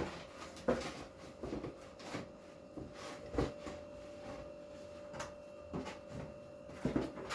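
Scattered light knocks and clicks of kitchen things being handled and set down on a worktop, with a few louder ones near the start and near the end, over a faint steady hum.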